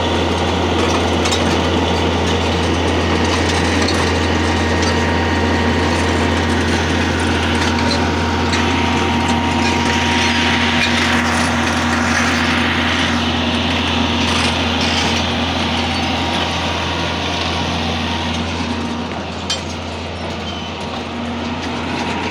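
Hitachi UH07-7 tracked excavator's diesel engine running steadily with a deep hum as the machine tracks down a steep slope. A hiss rises briefly about halfway through, and the engine eases off a little near the end.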